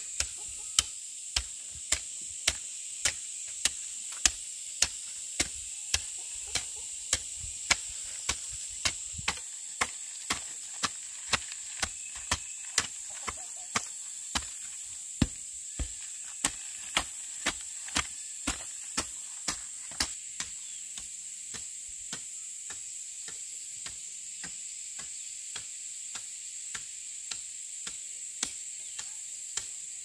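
Hand hoe chopping into dry, clumpy soil in a steady rhythm of nearly two strokes a second, sharp and close at first and fainter after about two-thirds of the way through. A steady high-pitched insect hum runs underneath.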